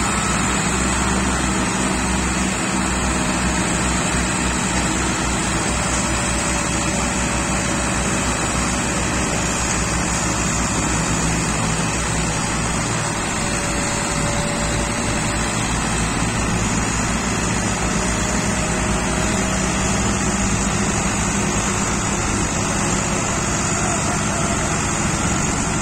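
Several diesel tractor engines running hard under heavy load, holding a steady note as they strain to pull a brick-laden trolley stuck in soft ground.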